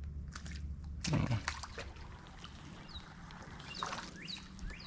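Handling noises on a fishing boat: a few knocks and rattles, the loudest about a second in, while a bird chirps short falling notes now and then over a low steady hum.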